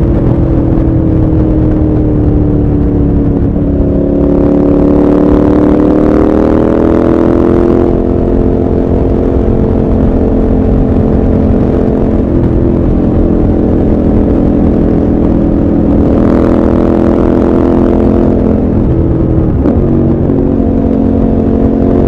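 KTM 1190 Adventure R's V-twin engine running under way, its note rising in pitch about four seconds in as the bike accelerates, then holding steady. Near the end the note dips briefly and settles lower, with wind and road noise underneath.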